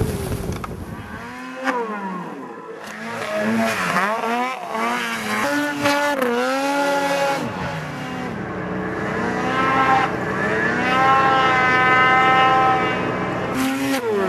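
Snowmobile engine revving up and down repeatedly, then held at high revs for about four seconds before dropping back near the end.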